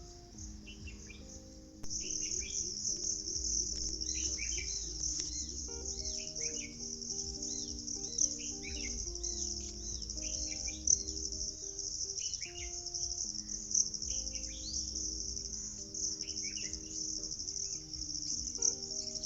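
Crickets trilling steadily, getting louder about two seconds in, with many short bird chirps over them. Soft background music of slow, held notes underneath.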